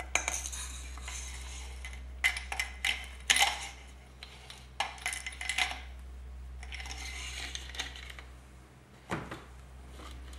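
Metal-on-metal clinking and scraping as the outer leg of a KTM motorcycle front fork is slid back over its inner tube and cartridge on a metal bench. It comes in several short bursts of clicks and scrapes, with a sharper knock near the end.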